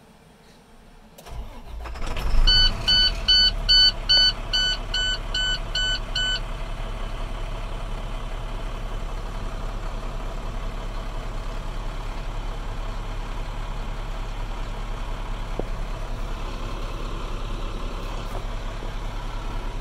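International DT466 inline-six diesel cranking and catching, then settling into a steady idle. A warning buzzer in the cab beeps about ten times in quick succession as it starts.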